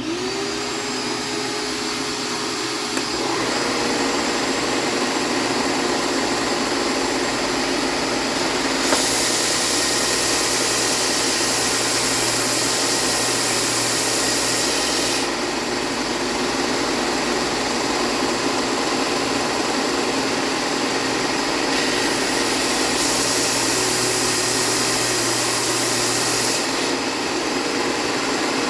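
Benchtop belt sander switched on, its motor spinning up and then running steadily. Twice, about nine seconds in and again about twenty-two seconds in, a louder, higher rasp joins it for several seconds as the wooden headstock blank is pressed against the abrasive belt.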